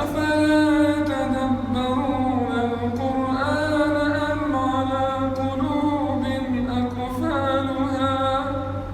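A male Quran reciter chanting one long melodic phrase in tajweed style, holding notes and gliding between pitches. A steady low hum sits beneath the voice.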